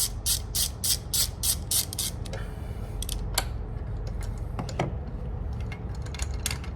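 Socket ratchet wrench clicking in quick, even strokes, about three a second, as a spark plug is loosened. The clicking stops about two seconds in, leaving a few light clicks over a steady low hum.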